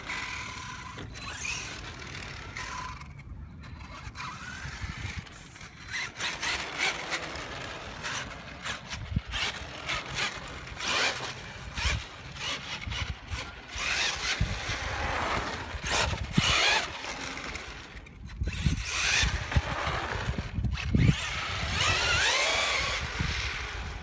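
Traxxas T-Maxx RC monster truck on a 4S battery, its motor and drivetrain whining in repeated bursts, rising and falling in pitch as the throttle is pulled and released. The whine comes from a pinion-to-spur gear mesh that the owner fears is set too tight.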